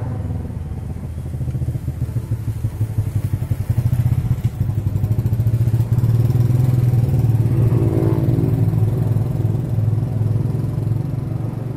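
Motorcycle engine running close by, then riding off into the distance.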